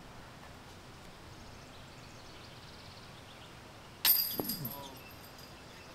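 A golf disc strikes the metal disc golf basket with a sharp clank about four seconds in, ringing briefly as it glances off: a missed putt. Before that there is only quiet outdoor background.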